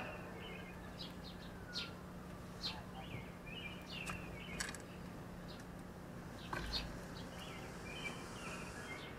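Small birds chirping in short, repeated calls, over a steady low hum, with a few sharp clicks.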